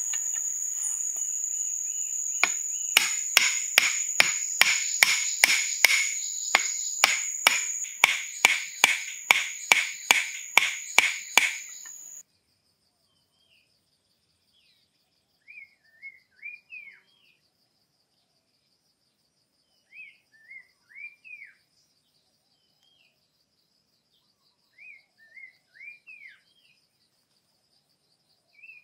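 Sharp knocks on bamboo, about two blows a second, over a constant high insect drone; this cuts off suddenly about twelve seconds in. A faint insect hum follows, with a bird giving three groups of short chirping calls.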